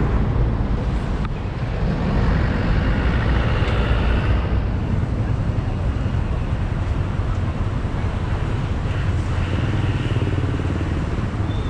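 City road traffic: a steady rush of engines and tyres, swelling louder as vehicles pass about two seconds in and again near the end.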